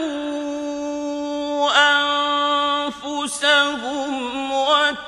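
A man's voice in melodic Quran recitation, holding one long steady note for about a second and a half, then moving through sliding, ornamented turns with a brief break for breath about three seconds in.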